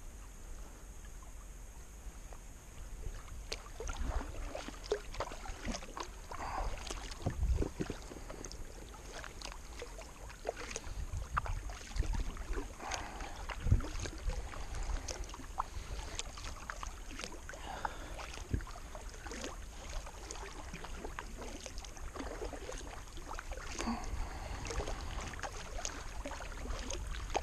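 Kayak paddle strokes: the blades dipping and splashing in calm river water at an irregular pace, with drips and occasional sharp knocks.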